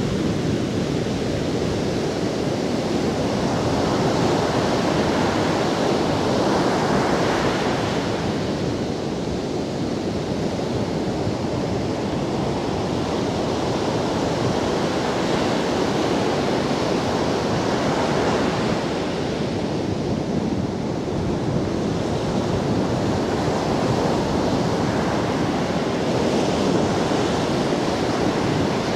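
Sea surf breaking and washing up a sandy beach: a continuous rush of water that swells several times as waves break.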